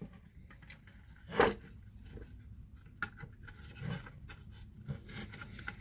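Quiet handling noises of small parts being worked into a power sander's housing during reassembly: a few light clicks and taps, with one louder short scrape about a second and a half in.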